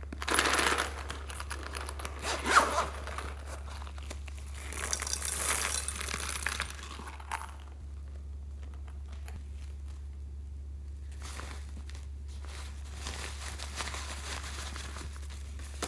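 Rustling and crinkling as a plastic-covered zippered pencil case and a doll in a fabric dress are handled, in a few bursts with one sharper crackle early on, over a steady low hum.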